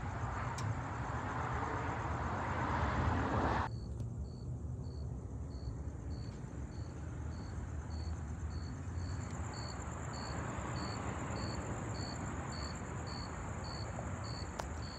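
A rushing noise that cuts off abruptly about four seconds in, then a steady low hum with a cricket chirping about twice a second.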